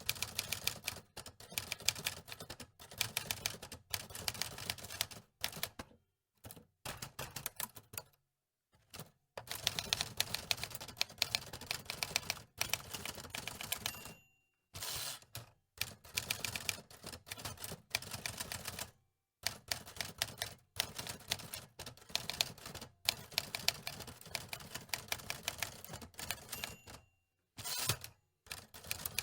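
Antique typewriter being typed on: rapid runs of key clacks in bursts of a few seconds, broken by short pauses.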